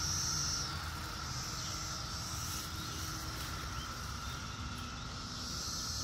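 Cicada chorus: a steady, even drone with higher buzzing calls swelling and fading over it a few times.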